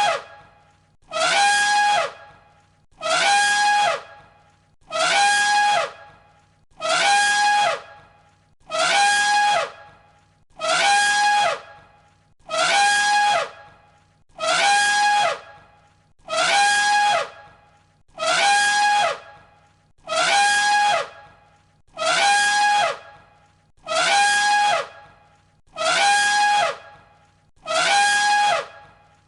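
Elephant trumpeting: the same short, loud call of about a second, repeated identically about every two seconds as a looped recording.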